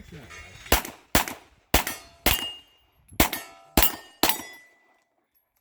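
A string of seven pistol shots fired at steel targets in quick succession, about half a second apart with a short pause midway. The steel plates ring briefly after the hits.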